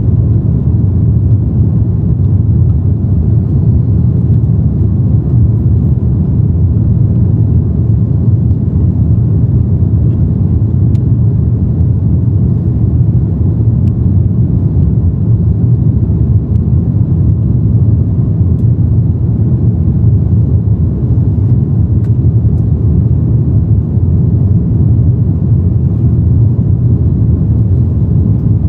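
Steady, loud low rumble of an Airbus A330-300's Rolls-Royce Trent 700 engines and airflow, heard inside the passenger cabin from a window seat over the wing during the descent to land.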